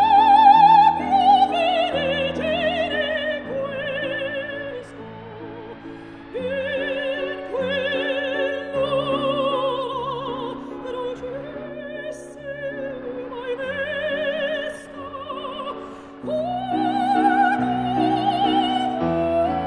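Background music: operatic singing with strong vibrato over sustained classical accompaniment, in long swelling phrases.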